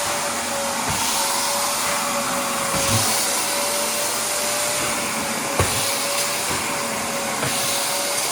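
An electric motor on floor-cleaning equipment running steadily, with a constant whine over a rush of air. A few light knocks come through, the clearest about three seconds and five and a half seconds in.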